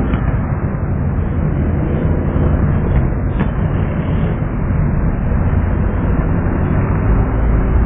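A pack of small fun-car racing cars on a dirt track, many engines running hard together in a loud, steady, low-heavy roar.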